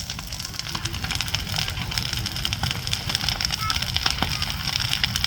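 Bonfire burning, with frequent sharp crackles and snaps over a steady low rumble.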